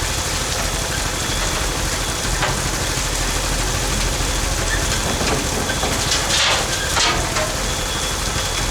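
Engine of a heavy digging machine running steadily as it takes its first bucket of dirt, with a few knocks about a third of the way in and again near the end.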